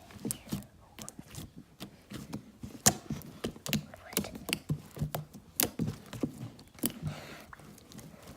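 Fluffy slime being squeezed and poked by hand, giving irregular sticky clicks and small pops.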